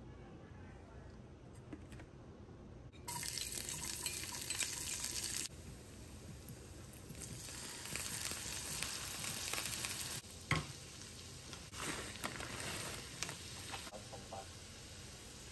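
Food sizzling in a frying pan while a utensil stirs it; the hiss starts abruptly about three seconds in and rises and falls, with one sharp knock about ten seconds in.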